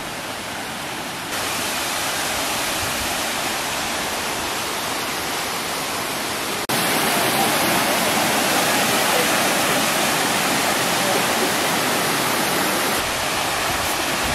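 Small waterfall and rocky stream rushing steadily. It jumps louder about a second in and again suddenly about seven seconds in.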